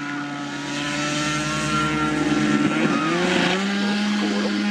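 A homemade light aircraft's 150 cc motorcycle engine running steadily, its pitch shifting and settling at a new speed about halfway through.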